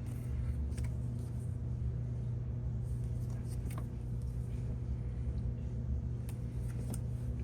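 Steady low electrical hum, with a few faint light ticks and rustles from album contents such as sticker sheets being handled.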